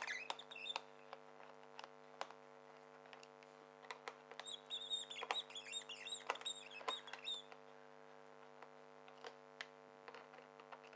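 Faint clicks and light knocks from a crosshead screwdriver and the plastic side door of an inverter generator as the door is unscrewed and removed. A run of high squeaks comes about four seconds in, over a steady low hum.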